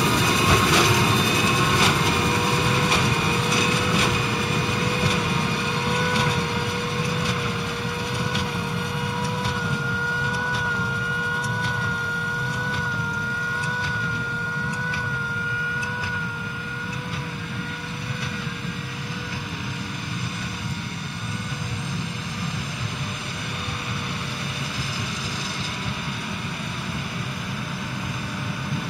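Case IH Puma 200 CVX tractor's 6.7-litre six-cylinder diesel running steadily, with a whine laid over the engine note. The sound gradually gets quieter.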